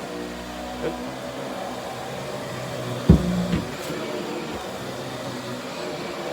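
Central vacuum running with a Riccar power head on the hose, a steady suction and brushroll noise. A small knock about a second in and a louder knock with a brief rattle about three seconds in, as the head bumps against something.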